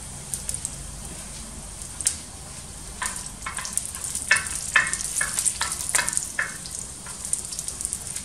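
Garlic cloves and bay leaves sizzling in hot oil in a wide disco pan, with a steady crackling hiss; the garlic is just starting to brown. From about three seconds in, a wooden spoon stirs them, with a run of short scraping strokes against the pan.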